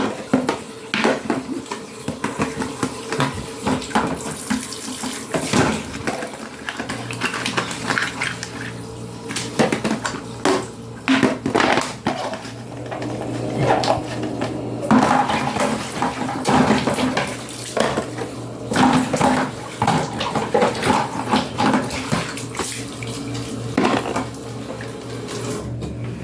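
Tap water running as a washing machine's lint strainer is rinsed out by hand, with frequent clattering and knocking of the plastic strainer. A low steady hum runs underneath from about seven seconds in.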